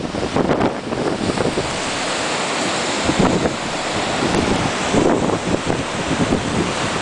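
Nor'easter storm wind gusting hard against the microphone over a steady rushing noise of wind and surf.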